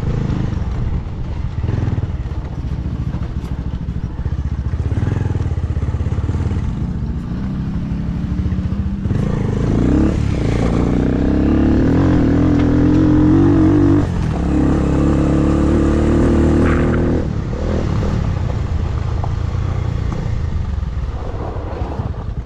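Motorcycle engine running under throttle over a rough dirt track; the revs climb about ten seconds in, hold, then drop back and rise again a couple of times as the rider works the throttle and gears.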